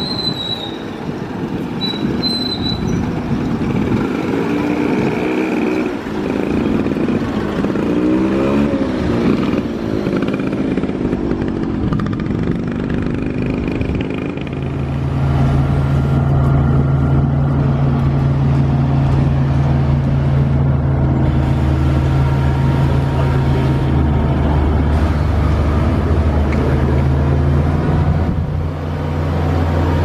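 Heavy vehicle engines running at a worksite. In the first half an engine runs unevenly amid general noise. About halfway through, a loud, steady low engine hum sets in and holds.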